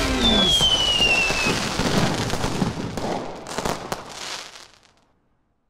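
Fireworks sound effect: a whistle falling in pitch for about a second, then crackling and popping bangs that die away about five seconds in.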